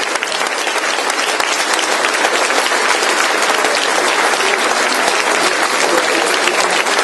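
Audience applauding, a dense mass of many hands clapping that swells a little over the first couple of seconds and then holds steady.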